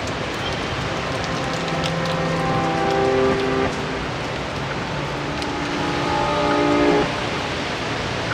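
Steady hiss of rain and traffic on a wet city street below, with held chords of background music coming in over it twice.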